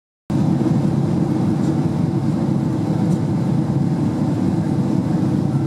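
Steady, deep cabin noise inside a Boeing 767-300ER on approach: engine and airflow noise heard from a seat over the wing.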